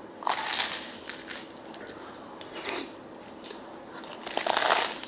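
Crunchy bites into a crusty baguette, its crust crackling. One loud bite comes about half a second in and another near the end, with softer crunching and chewing between them.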